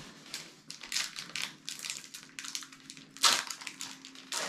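Foil Pokémon booster-pack wrappers crinkling as the cards are handled: a run of short rustles and clicks, with one louder crackle a little past three seconds in.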